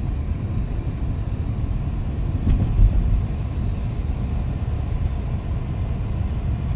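Steady low rumble of a moving car, engine and road noise heard from inside the cabin, with a brief click and a low thump about halfway through.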